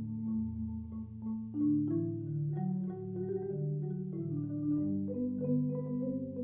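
Background music: a melody of distinct pitched notes stepping up and down over held low notes.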